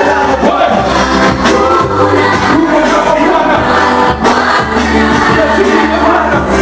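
Live gospel music: a group of singers performing together into microphones over a steady bass line.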